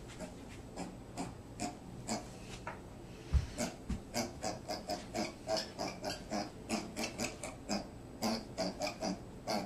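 An animal making short repeated sounds, sparse at first and then quick, about three a second. A single low thump about three seconds in is the loudest sound.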